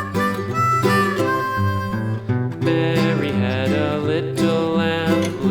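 Instrumental country-style music with guitar and harmonica, the introduction to a children's song.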